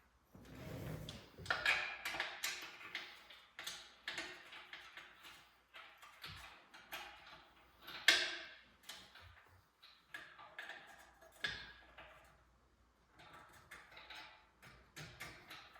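Irregular clicks and sharp metallic knocks of hand-tool work, with short ringing after some strikes and one louder knock about halfway through.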